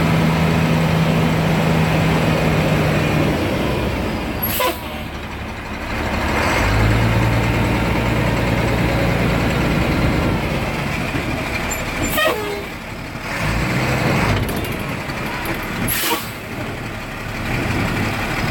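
Heavy farm vehicle engine running, its pitch dropping about three seconds in and changing again a few times after. Three short, sharp hissing clicks come several seconds apart.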